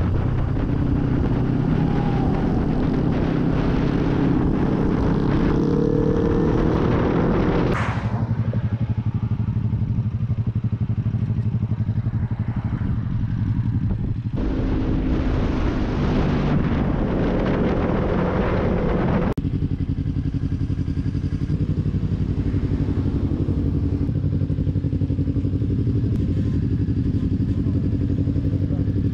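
Motorcycle engine running at road speed with wind rush, then motorcycle engines idling at a standstill; the sound changes abruptly several times.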